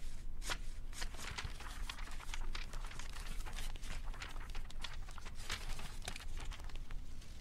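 Paper crinkling and crackling in quick, irregular clicks over a steady low hum: the sound effects of the music video's opening, where diary pages are handled and a photo starts to burn.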